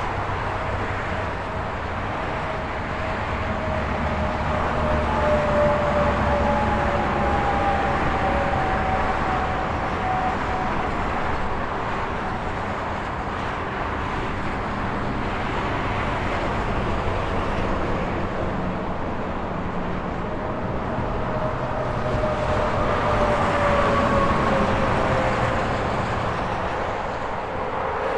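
Continuous highway traffic: a steady rush of tyres and engines as trucks and cars pass. Twice a passing vehicle's whine slides down in pitch as it goes by, the noise swelling about five seconds in and again near the end.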